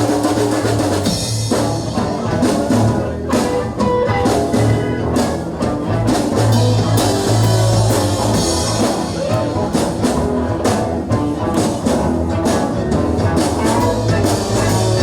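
Live rock band playing an instrumental break, with drum kit, electric guitar and bass.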